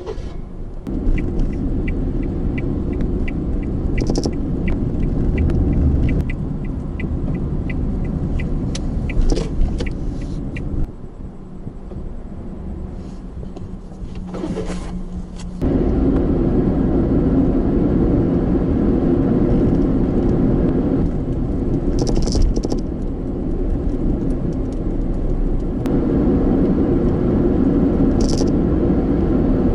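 Vehicle engine and road rumble recorded on board, with a regular ticking about twice a second for the first ten seconds. Midway it drops quieter to a steady low hum for about five seconds, then the rumble suddenly comes back louder.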